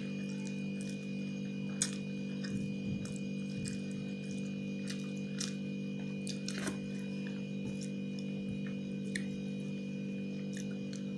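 A steady electrical hum runs throughout under scattered short clicks and smacks of eating by hand: mouth sounds of chewing and fingers working rice on a steel plate.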